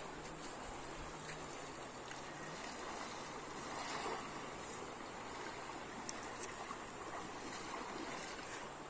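Steady rush of a swollen, muddy river around wading legs, with a cast net slapping down onto the water about four seconds in. A faint low steady hum runs underneath.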